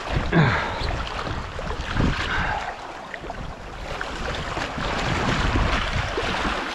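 Sea water washing and splashing over rocks, rising and falling in a few louder surges, with wind buffeting the microphone.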